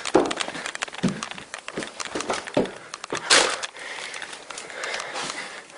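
Irregular knocks, clatter and rustling of objects being moved and stepped among while a handheld camera is carried through a room, with a louder rushing noise about three seconds in.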